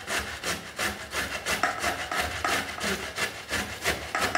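Peeled beetroot being grated on the fine side of a stainless-steel box grater: rhythmic rasping strokes, about three a second, that stop suddenly near the end.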